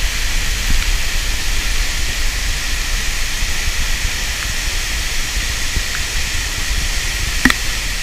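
Steady roar of the Gljúfrabúi waterfall, a tall fall plunging into a narrow, enclosed rock gorge. A single short click sounds near the end.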